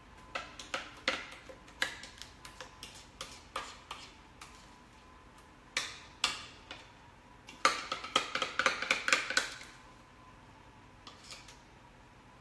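Kitchen utensils clicking and scraping against a bowl and skillet on a counter: scattered light clicks, then a quick run of rattling clinks about eight seconds in. A faint steady high hum runs underneath.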